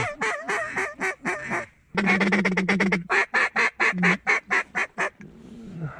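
Hand-blown duck call working a single duck: fast runs of short, loud quacking notes, a first run of under two seconds, a brief break, then a longer run that slows a little before stopping about five seconds in.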